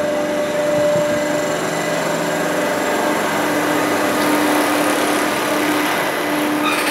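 Amusement-park ride machinery running with a steady hum and a held whining tone that grows stronger about halfway through, with a couple of clicks near the end.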